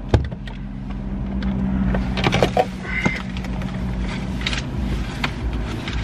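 Car engine idling steadily, heard from inside the cabin, with a sharp click near the start and scattered clicks and rustles as papers are searched for inside the car.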